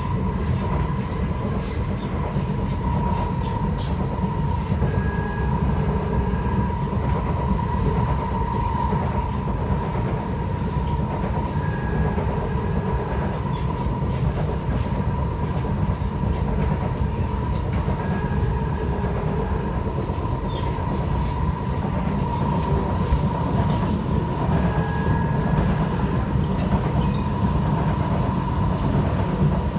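Kawasaki & Nippon Sharyo C751B electric train heard from inside the car while running: a steady low rumble from the wheels on the track with a steady whine above it. Short higher tones come back about every six or seven seconds.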